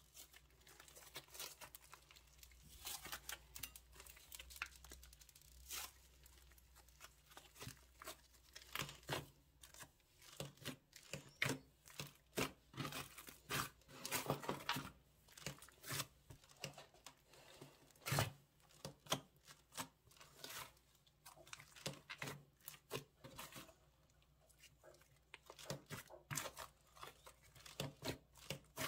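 Hands working slime: irregular sticky crackles, clicks and tearing sounds as it is stretched and squeezed, getting denser and louder about a third of the way in.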